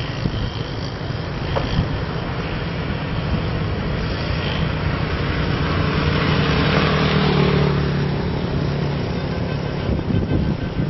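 Engine and road noise of a vehicle driving along a road, running steadily. About six to eight seconds in, the sound swells and a faint tone slides down in pitch.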